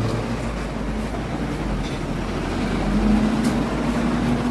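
A steady low rumble under an even noise haze, with a faint hum.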